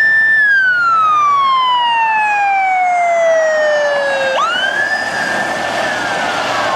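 Police siren wailing. A high tone holds briefly, then slowly falls over about four seconds, rises sharply back up, holds, and begins to fall again.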